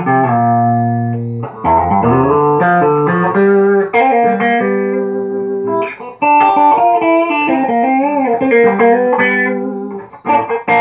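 Electric guitar played through a late-1970s Ampeg V4 tube amp head: chords and short single-note phrases with a few bent, wavering notes past the middle, the amp passing signal again after its repair.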